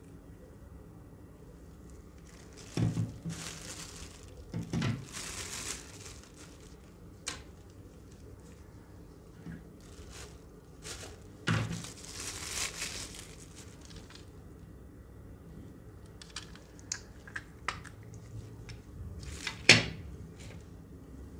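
Plastic packaging bags and paper crinkling in several bursts as small parts are unpacked by hand, with light clicks and knocks of plastic pieces on a table; one sharp knock near the end is the loudest sound.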